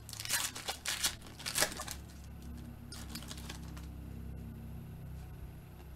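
Foil trading-card packs being torn open and crinkled by hand, with several sharp crackling bursts in the first two seconds. A low steady hum follows to the end.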